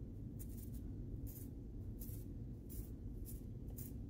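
Finger flicking across the bristles of an old toothbrush loaded with acrylic paint, spattering it onto a canvas: six short, hissy flicks, about one every two-thirds of a second.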